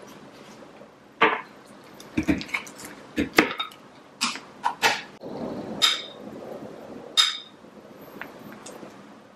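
A series of sharp knocks and clicks as a glass food container and its snap-lock plastic lid are handled on a granite countertop, about nine in all. Two of them, in the second half, ring briefly like glass.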